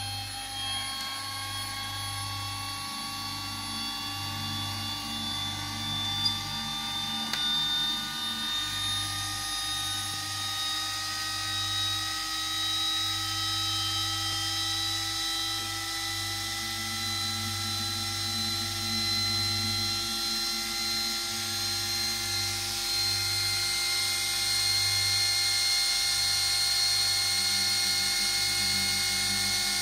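AGB-3K attitude indicator's electric gyro running on three-phase 36 V 400 Hz power, a high whine that keeps slowly rising in pitch as the rotor spins up, over a steady low hum. One short click about six seconds in.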